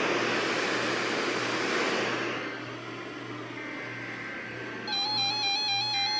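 Radio static hiss from a receiver with no programme on it, fading after about two and a half seconds over a low pulsing hum. About five seconds in, a bright electronic beeping melody starts.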